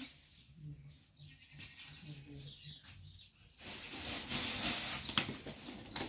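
Bags being handled and rustling: after a quiet first half, a loud rustling starts suddenly about three and a half seconds in and keeps going, with a few small clicks.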